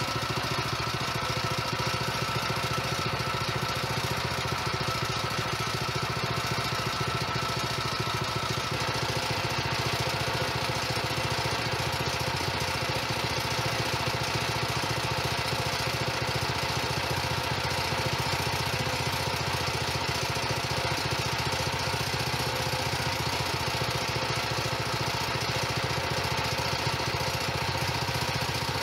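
Predator 212 single-cylinder overhead-valve engine running steadily.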